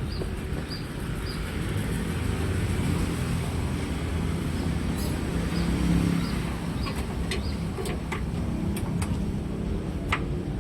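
Truck on the move: steady engine rumble and road noise, with a light regular ticking over the first several seconds and a few sharp clicks.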